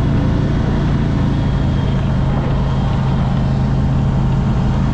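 Boat's swapped-in GM LS V8 inboard engine running steadily at high RPM with the boat on plane, a loud, even drone.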